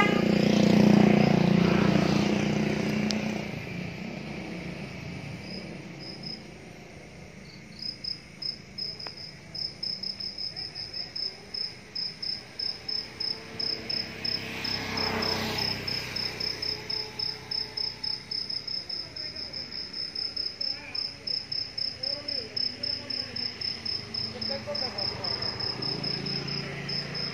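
A cricket chirping steadily, high-pitched, about three chirps a second, starting several seconds in. A low rumble, the loudest sound, fills the first couple of seconds, and a second swell of noise rises and fades about halfway through.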